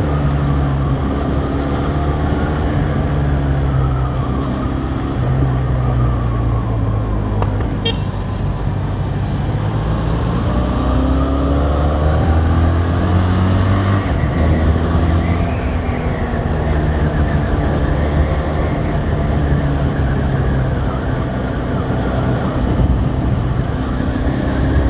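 Benelli 502C's parallel-twin engine running under way, its pitch dropping and climbing in steps as the rider rolls the throttle and shifts gears. A short click about eight seconds in.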